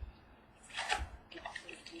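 Trading-card box and its packaging being handled and opened, with a couple of short rustles and a soft thud about a second in.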